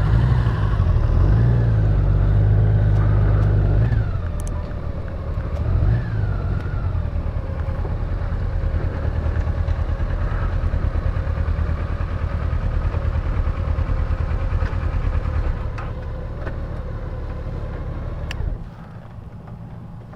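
2018 Honda Gold Wing's flat-six engine running at low road speed, its pitch rising briefly with the throttle twice in the first several seconds, then running steadily. The engine sound drops away sharply near the end.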